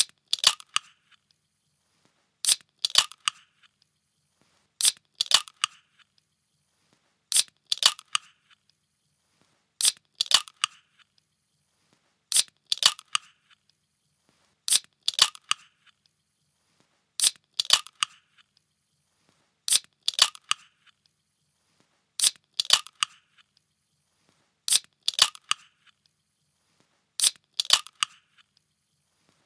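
A can being cracked open by its tab: a sharp snap followed by a brief hiss, about twelve times at even intervals of roughly two and a half seconds.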